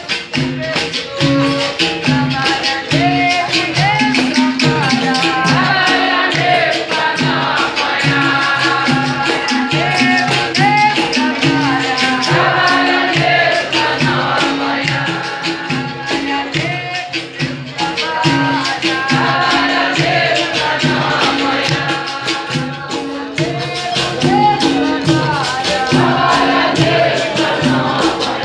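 Capoeira roda music: berimbau played with a rattling caxixi shaker, a repeating rhythm, and voices singing over it.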